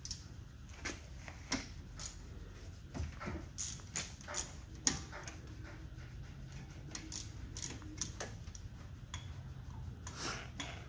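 Irregular metallic clicks and clinks of a hand tool working on a car's front disc brake caliper, with a denser run of sharper clicks about four to five seconds in.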